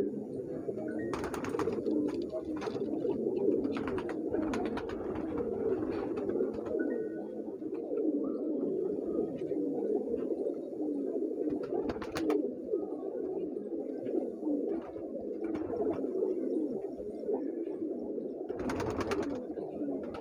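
Domestic pigeons cooing continuously, several birds at once, a low throbbing chorus.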